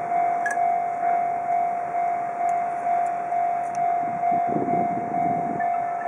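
Japanese railway level-crossing warning bell ringing: a loud, single electronic tone struck a little under twice a second, which signals that a train is approaching. A short low rumble comes in about four seconds in.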